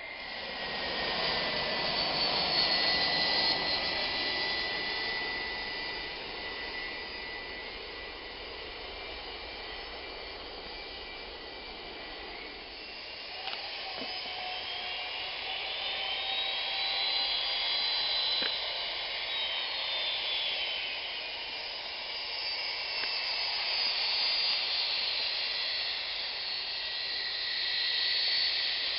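Jet airliner engines whining at a distance, with a steady high whine early on, then a whine that rises and falls in pitch over the middle, as the aircraft moves along the runway. The loudness swells near the start and again through the second half.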